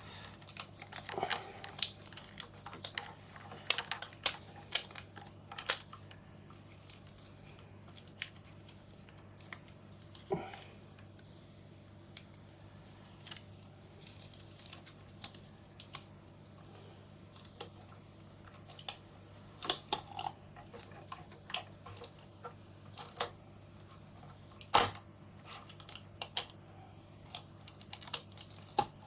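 Irregular clicks and knocks of a Nikon F film camera being handled while 35mm film is re-threaded onto its sprockets and take-up spool. The loudest, a single sharp click, comes near the end.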